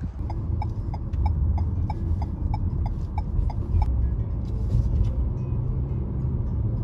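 Car driving, with a steady low rumble of engine and road noise. The turn-signal indicator ticks about three times a second, then stops a little past halfway.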